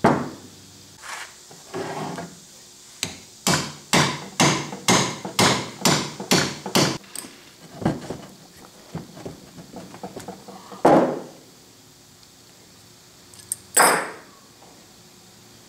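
Hammer tapping on the steel parts of a machinist vise to work the nut and jaw free: a run of about eight sharp knocks, roughly two a second, then scattered ticks and two single heavier knocks later on.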